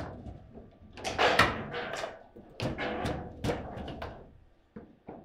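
Table football (foosball) play: a string of sharp knocks and clacks from the ball, the plastic figures and the rods, several in quick succession. The loudest comes about a second in.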